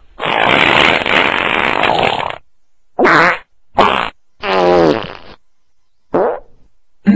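A string of comic fart sounds: one long, noisy one lasting about two seconds, then four short ones, the middle one pitched and wavering.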